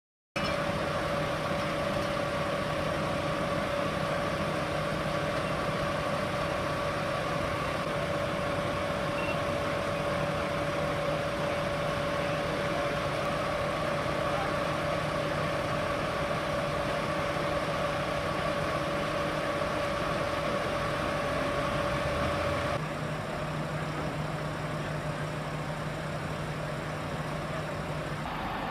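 Engine running steadily with a constant whine over a low hum; the sound drops a step and changes about 23 seconds in.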